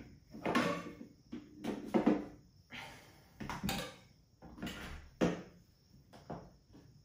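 Metal tubes being pushed and worked into plastic corner connectors of a frame: a few sharp knocks and clicks spread through, with rubbing and scraping between them.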